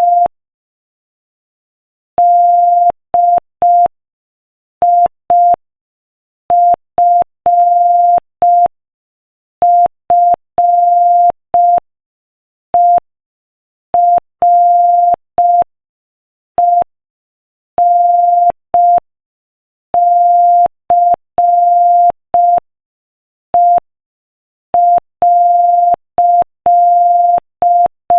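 Morse code sent at 5 words per minute: a single steady beep keyed on and off in short dots and longer dashes, with silent gaps between characters and longer gaps between words.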